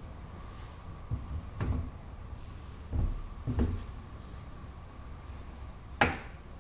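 Heavy metal vertical support of a milling machine being worked by hand into its mounting bore: several dull clunks as it is pushed and turned, then one sharp metal knock near the end as it seats.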